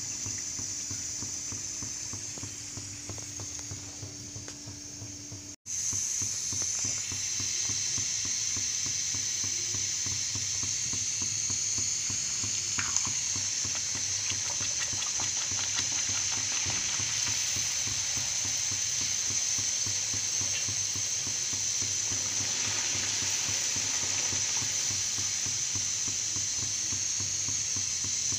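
Puris deep-frying in hot oil in an iron kadai: a steady sizzle with fine crackling. It cuts out for an instant about five and a half seconds in, then goes on at the same level.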